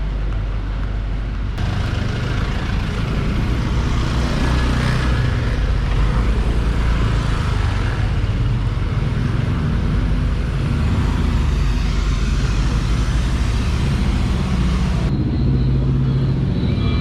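Road traffic: motor vehicle engines running in a steady rumble, with changes about a second and a half in and near the end where the sound is cut.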